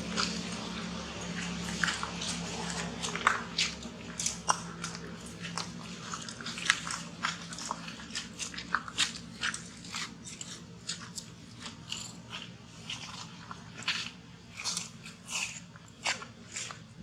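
A monkey biting and chewing crunchy food close to the microphone: sharp, irregular crunches, several a second. A low hum fades out over the first few seconds.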